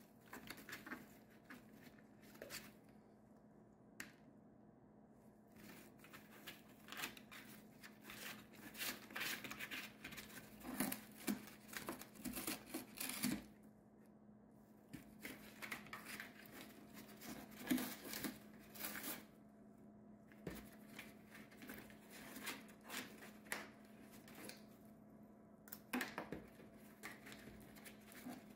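A cockatoo tearing and chewing cardboard with its beak and rummaging through shredded cardboard in a box: irregular crackling, snapping and scratching, with a few short pauses. A faint steady hum runs underneath.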